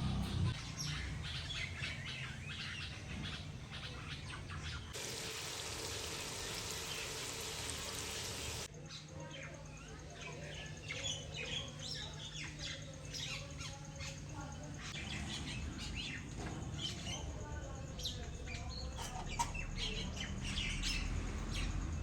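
Small birds chirping and calling in scattered short notes over a steady low hum. An even hiss comes in suddenly about five seconds in and cuts off about four seconds later.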